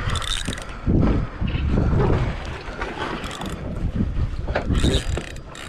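Wind buffeting the microphone on an open fishing boat: an uneven rumble and hiss that gusts up and down, with a few sharp knocks.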